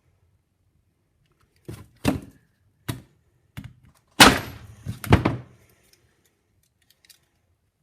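A run of about seven sharp knocks and clacks of hard objects, close together, from handling a Nokia mobile phone. The loudest come a little past the middle.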